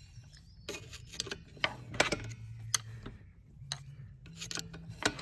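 Screwdriver ratcheting the toothed brake-adjuster wheel of an AL-KO caravan drum brake, a string of irregular sharp clicks, one per notch, with a short pause about three seconds in. The clicks are the shoes being set out toward the drum until the wheel locks, to take up wear on a brake that no longer adjusts itself.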